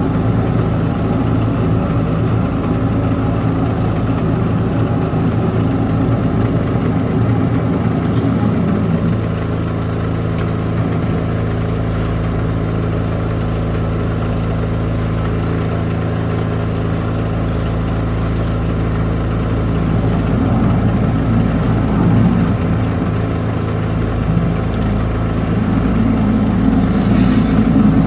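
High-pressure drain-cleaning washer running steadily: a continuous machine drone with a low hum, its tone shifting slightly about a third of the way in.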